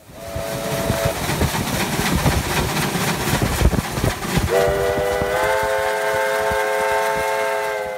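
Steam locomotive passing with loud running and exhaust noise; a short whistle toot sounds just after the start, then from about halfway a long chime-whistle blast of several notes together, stepping up slightly in pitch about a second in and held until it fades out.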